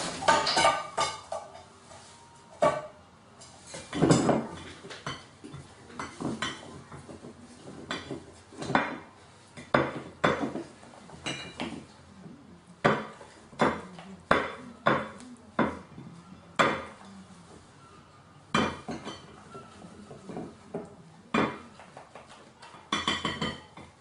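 A gull's wings flapping as it flies in and lands, then its beak pecking and tugging at food on a plate, knocking the plate and cutlery in irregular clinks and knocks.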